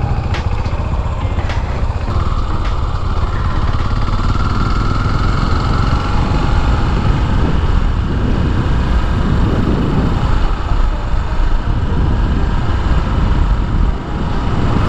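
Yamaha SR400's single-cylinder engine running steadily while the motorcycle is ridden along, with heavy low rushing noise from wind over the microphone.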